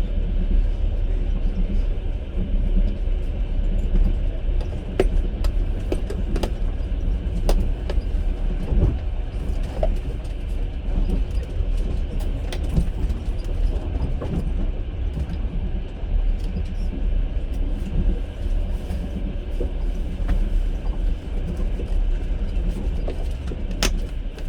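Passenger train carriage running at speed: a steady low rumble from the wheels and bogies, with scattered sharp clicks and knocks from the wheels on the rails.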